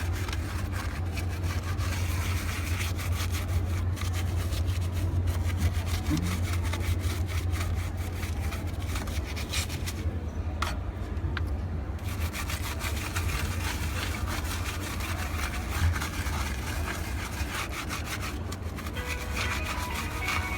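A brush scrubbing a motherboard's slots and circuit board: continuous quick scratchy rubbing that lets up briefly about ten seconds in. A steady low hum runs underneath.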